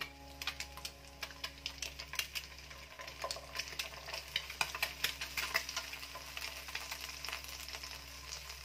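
Nylon spatula scraping and knocking against a granite-coated wok while scrambled egg fries in oil: irregular clicks and scrapes, several a second, over a soft sizzle.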